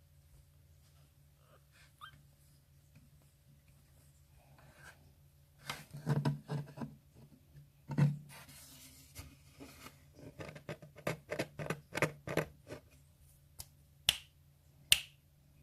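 Bursts of rustling with rapid clicks and knocks, as of handling or movement close to the microphone, over a low steady room hum. Near the end come two short, sharp, high-pitched squeaks.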